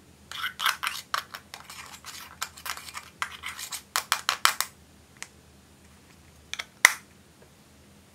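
Scissor tips scraping and crumbling pressed eyeshadow out of its compact in quick strokes for about four and a half seconds, followed by a few sharp clicks, the loudest about seven seconds in.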